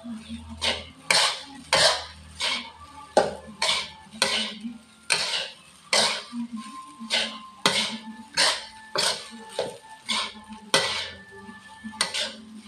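Spatula scraping and knocking against an aluminium wok while stir-frying fried rice, in a steady run of strokes about every half second. Faint ringing from the wok comes between the strokes.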